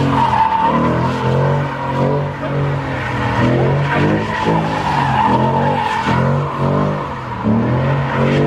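Infiniti G35's V6 engine revving up and falling back again and again, with tires squealing steadily underneath, as the car is driven hard on a race track.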